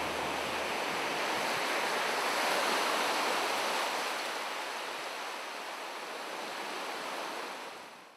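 Ocean surf: waves breaking and washing up the shore in a steady rush that swells a couple of seconds in, eases, and fades out near the end.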